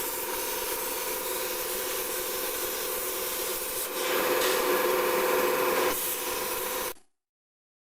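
CNC plasma torch cutting stainless steel sheet: a steady hiss with a steady whining hum in it, louder for a couple of seconds midway, then cutting off suddenly near the end.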